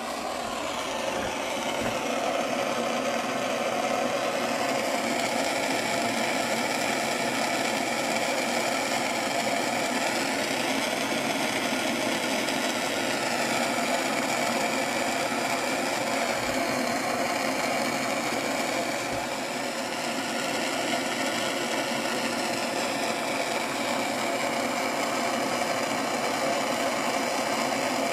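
An engine running steadily at a constant speed, its pitch wavering slightly around the middle.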